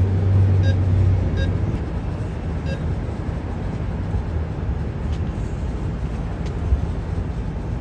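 Three short electronic beeps from an ATM keypad as a PIN is keyed in, in the first three seconds. They sit over a steady low hum and rumble of an idling car.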